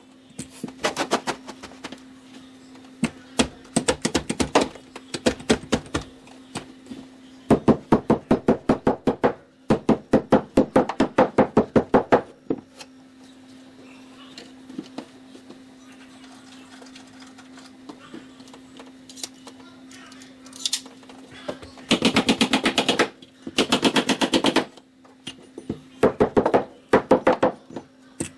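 Carpet stapler firing rapid runs of staples, about nine shots a second in bursts of a second or two, several times over, as carpet is fastened to stair treads and risers. A steady low hum sits underneath.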